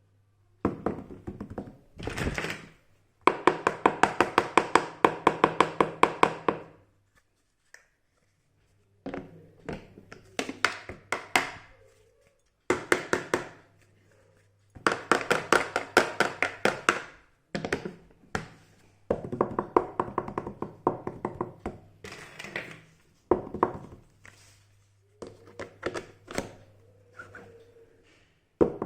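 Small plastic pieces of a mini toy kitchen set being handled, in bursts of rapid clicking and tapping a few seconds long with short pauses between.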